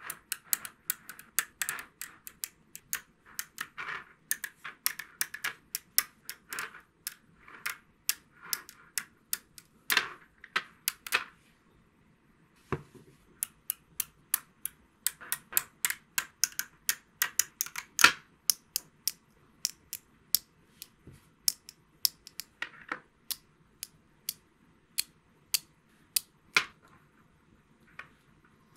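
Small silver magnetic balls (neodymium sphere magnets) clicking sharply as they snap onto one another while a shape is built from them: a rapid, irregular run of clicks, a pause of about a second and a half near the middle, then more clicks.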